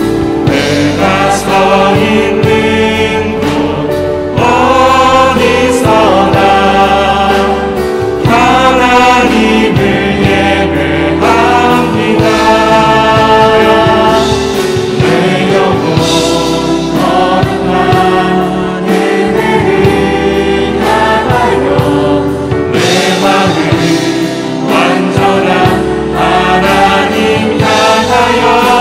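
Live praise band music: a group of men and women singing a Korean worship song together over acoustic guitar, keyboard and drums.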